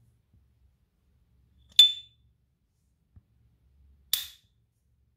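Silver S. T. Dupont Ligne 2 lighter's lid snapping twice, about two seconds apart, each time with a sharp metallic click. The first leaves a brief high ring: the lighter's signature ping.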